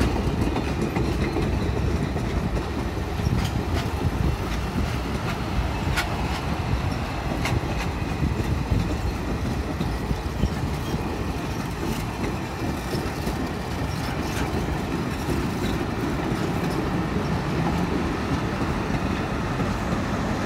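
Passenger train's stainless-steel cars rolling past at close range: a steady rumble of wheels on rail with scattered sharp clicks. Near the end, the engine hum of the diesel locomotive at the end of the train grows louder as it nears.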